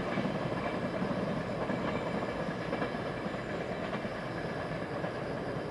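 Container freight train's wagons rolling away on the rails: a steady rumble of wheels on track, fading slightly.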